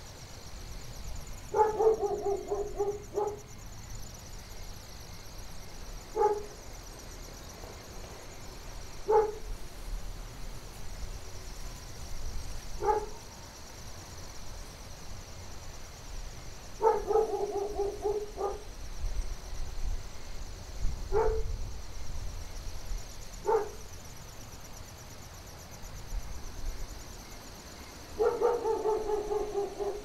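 A dog barking, in three runs of rapid barks (near the start, a little past halfway and near the end) with five single barks between them. Under it is a low wind rumble and a steady high hiss.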